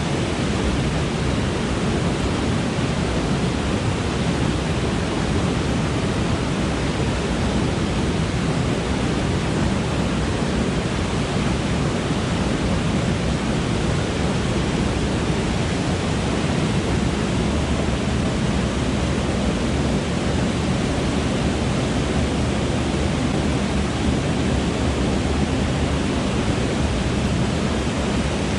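Steady, unbroken rush of a mountain stream's flowing water, starting abruptly at a cut.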